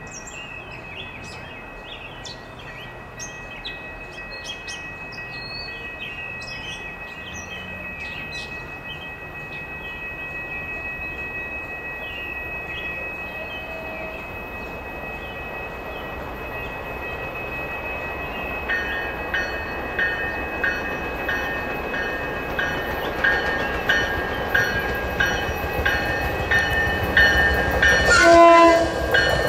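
MBTA Commuter Rail push-pull train approaching, its rumble growing steadily louder. From about two-thirds of the way in, the cab car's bell rings in a steady rhythm. Near the end, as the cab draws close, a loud horn blast drops in pitch.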